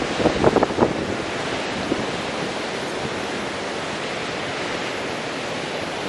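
Ocean surf breaking on a beach: a steady, rushing wash of waves. Gusts of wind buffet the microphone during the first second.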